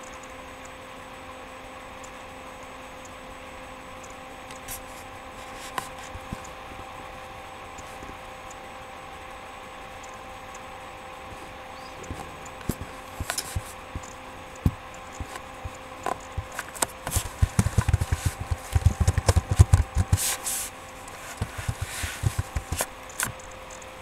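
Low steady hum with a few faint clicks, then from about halfway a run of knocks, scrapes and rubbing, with heavy low thuds densest a few seconds before the end.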